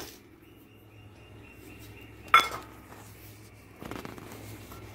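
A single sharp metal clink with a brief ring about two seconds in, a steel utensil knocking against the steel cooking pot, followed by a soft scrape or rustle near the end.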